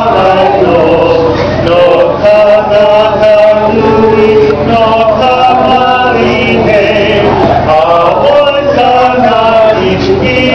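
A group of men and women singing together in chorus, the men's voices most prominent, continuously and at a steady level.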